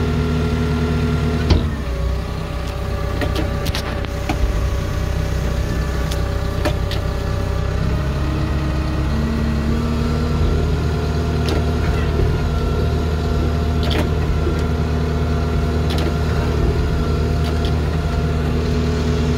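Cat D4K dozer's diesel engine idling steadily, with a few light clicks over it; the engine note shifts slightly about a second and a half in and again around ten seconds.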